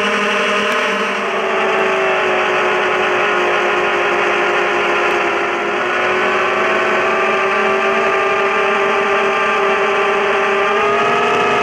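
Brushless motors and propellers of a ZMR250 racing quadcopter whining steadily in flight, the pitch shifting with throttle: a dip about a second in and a rise near the end.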